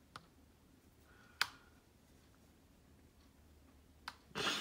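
Handheld smartphone gimbal being handled: a few isolated sharp clicks, the loudest about a second and a half in, then a short rustle near the end, over quiet room tone.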